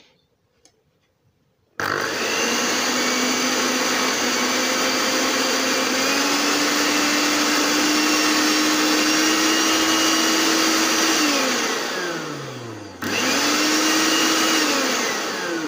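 Philips 350-watt blender motor base running with no jar fitted, a test run after its worn plastic drive coupling gear was replaced. It starts abruptly about two seconds in and runs steadily for about ten seconds with a whine that rises slightly, winds down in falling pitch when switched off, then runs again briefly and winds down once more near the end.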